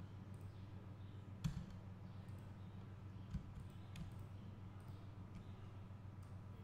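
A few scattered computer mouse clicks, the loudest about one and a half seconds in, over a steady low hum.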